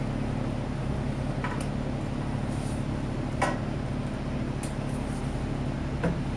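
A few short metallic clinks of parts and tools being handled, about four in all, the loudest about halfway through, over a steady low mechanical hum.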